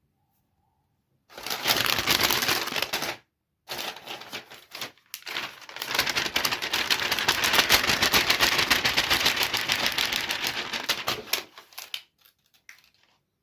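Rapid, dense clicking and crackling in three bursts, the longest running for about six seconds, with short gaps between them.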